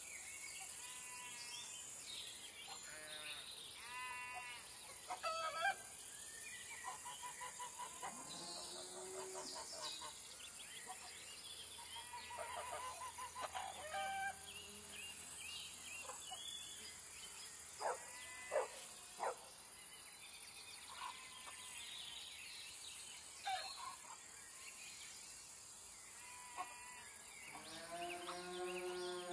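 Farmyard ambience: scattered short calls from birds and farm animals, with a longer, lower call near the end, over a steady high hiss.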